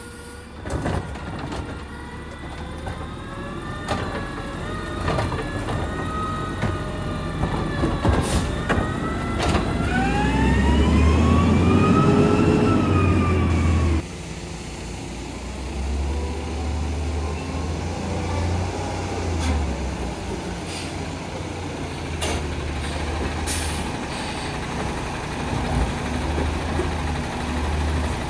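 Garbage truck working: the engine revs with a whine that rises and falls in pitch, the usual sound of the hydraulic pump while the arm or packer cycles. It is loudest about ten to fourteen seconds in, then drops suddenly to a lower, steadier run. There are a couple of short hisses of air.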